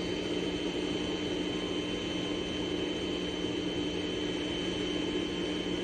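Steady hiss with a low hum and a faint high whine: dead air on a weather radio receiver between alert broadcasts.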